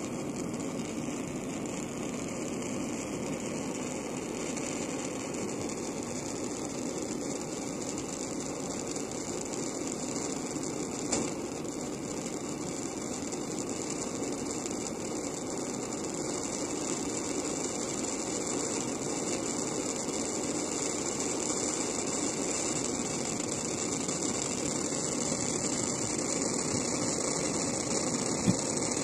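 Spit-Fire A-100 alcohol blowtorch burning with a steady hissing rush of flame, growing slightly louder as it runs. A single short click about eleven seconds in and another near the end.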